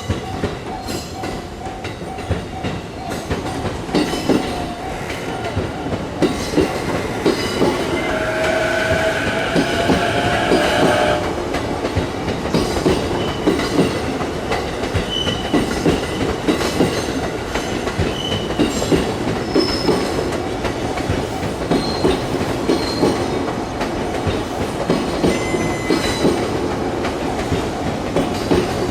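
A JR Chuo Line train passing at close range, its wheels clattering over the rail joints in a steady clickety-clack, with a high wheel squeal about eight to eleven seconds in.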